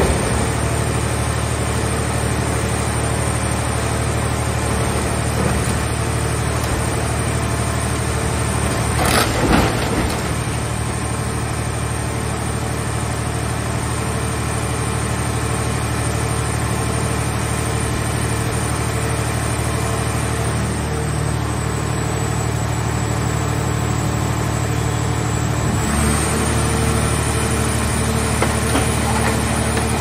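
Hydraulic car baler running with a steady, loud machine drone while its press crushes a scrap car shell. A short burst of crunching metal comes about nine seconds in, and the drone's tone shifts a few seconds before the end.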